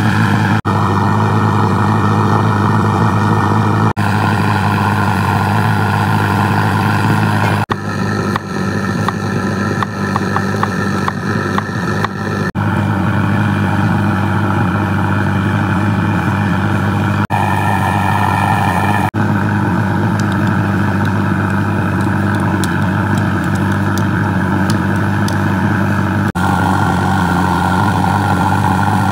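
Soviet-made petrol pressure burner running with a loud, steady noise, its fuel vaporised by the burner's own heat. A few light clicks come through about a third of the way in.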